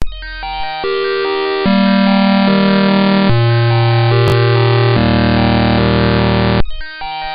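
Computer-generated bytebeat-style audio from the REGEX malware: loud, buzzy synthesized tones held in blocks and stepping abruptly from pitch to pitch, with a click about four seconds in. It drops out briefly near the end and starts the pattern over.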